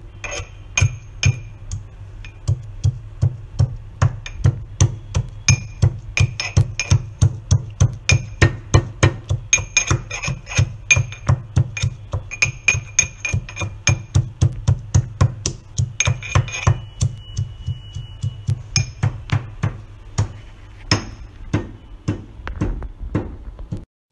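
Steel pestle pounding garlic cloves, green chili and black pepper in a small stainless-steel cup, about three strikes a second with a metallic ring to each blow. The steady pounding stops about four seconds before the end, leaving a few scattered strikes.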